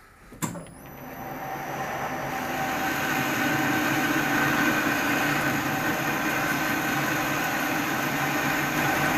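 Metal lathe switched on with a click about half a second in, the spindle running up to speed over a couple of seconds and then running steadily while a parting-off tool widens a groove in a steel bar.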